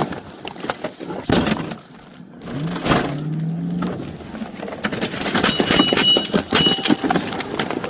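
A vehicle engine runs, rising briefly in pitch about two and a half seconds in, among a string of knocks, bumps and rustling close to the microphone.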